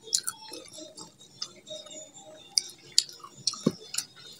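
Close-miked chewing and small wet mouth sounds, with scattered soft clicks as fingers pick rice and chicken off banana leaves.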